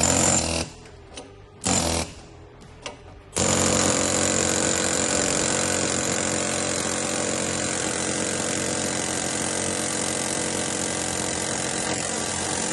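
Pneumatic air hammer working at a bushing in a dozer ripper box to knock it out: two short bursts, then a long steady run starting about three seconds in.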